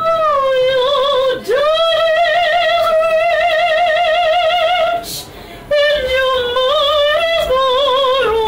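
A woman singing solo with a wide vibrato, holding long sustained notes, one from about two seconds in to about five seconds in, with two short pauses between phrases.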